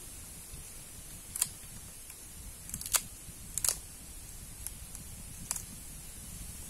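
A small knife cutting and splitting the tough husk of a wild bamboo shoot, giving a handful of short, sharp snaps at irregular intervals, two of them close together near the middle.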